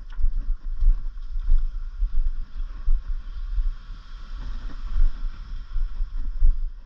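Wind buffeting the camera microphone: a gusty, uneven low rumble over a faint steady hiss.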